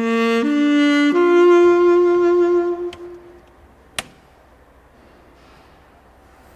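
Short musical jingle of three rising horn-like notes, the last one held and fading out about three seconds in. A single sharp click follows about a second later.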